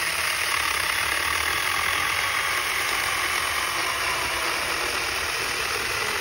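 Cordless battery-powered mini chainsaw running steadily as its chain cuts through a wooden board, with its pitch dropping slightly as it works through the wood.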